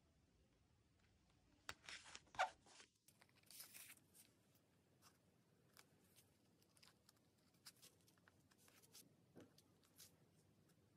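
Quiet paper-craft handling sounds: paper stickers rustling under the fingers, with a short papery hiss like a sticker being peeled off its backing sheet about three and a half seconds in, then light scattered taps and clicks as metal tweezers place small alphabet stickers on a paper journal page.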